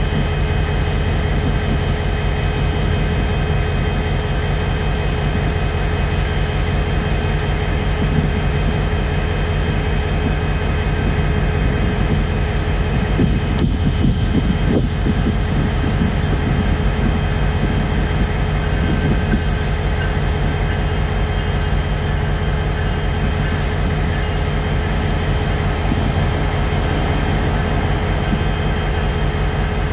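BNSF diesel-electric freight locomotives running as their consist moves along the track. A steady deep engine rumble carries a constant high whine over it.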